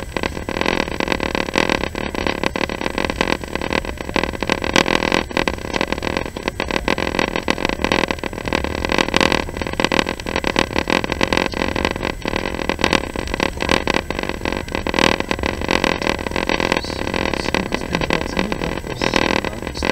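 A moving vehicle heard from inside: a steady, loud running noise with dense rattling and clicking all the way through.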